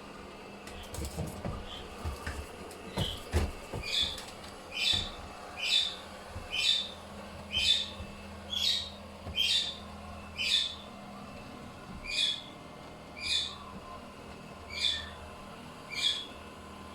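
A bird calling a short note over and over, about once a second, after a few light knocks at the start.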